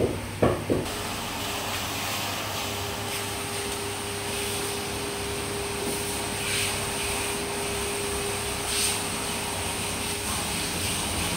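Steady machine hiss with a held hum. The hum comes in about two and a half seconds in and drops out near the end.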